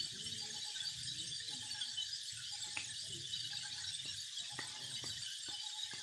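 Steady, high-pitched chorus of insects buzzing in the forest trees, with a few faint clicks.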